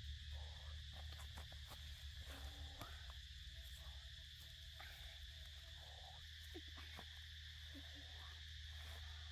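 Insects chirring steadily in a high, even drone over a low steady hum, with scattered faint clicks.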